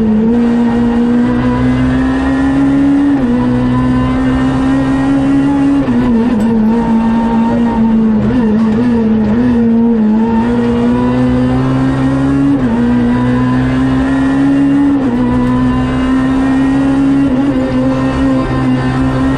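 Cabin sound of a Renault Clio R3C rally car's naturally aspirated four-cylinder engine running hard on a stage. The pitch climbs steadily and then drops sharply at each upshift, several times. Midway it wavers and dips lower for a few seconds as the car slows for corners.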